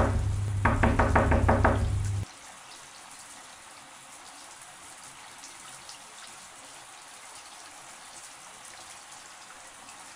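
Music that cuts off abruptly about two seconds in, leaving a shower running: a steady hiss of falling water.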